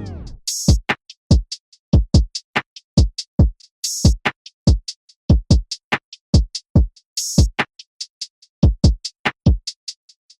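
Background music: a sparse electronic drum-machine beat of short kicks and ticks, with a clap-like hit about every three and a half seconds.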